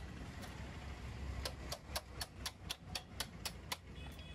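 A run of about ten sharp metallic clicks, evenly spaced at about four a second, from work on a motorcycle's rear wheel and tyre, over a low steady hum.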